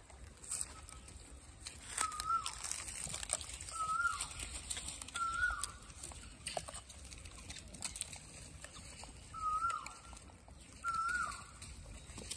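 Five short, high, whistle-like animal calls, each rising slightly then dropping, spaced one to four seconds apart. Under them are light scattered clicks and scuffling from a troop of rhesus macaques feeding on grain.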